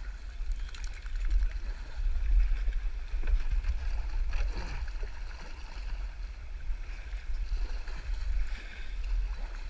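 Shallow river water rushing and babbling around a kayak's hull as it moves through a rocky riffle, with scattered small splashes over a steady low rumble.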